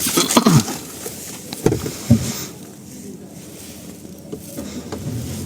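Car engine idling as heard inside the cabin, a low steady hum with no booming resonance. The sagging engine mount that caused the idle boom has just been replaced. Voices and a few knocks are heard in the first two seconds.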